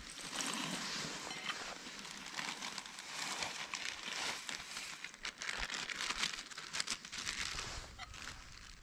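A plastic bag crinkling and rustling as dehydrated soup mix is shaken out of it into a pot of hot water. The crinkling is irregular and full of small crackles, and it dies down near the end.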